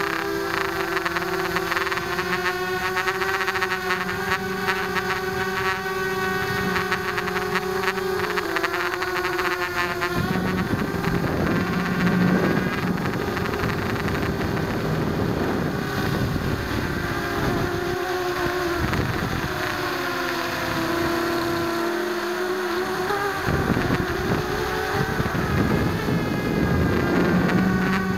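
Blade 200 QX quadcopter's motors and propellers whining, picked up by a camera mounted on the craft. The pitch holds steady at first, then from about ten seconds in it wavers up and down as the throttle changes, with rougher rushing and buzzing mixed in.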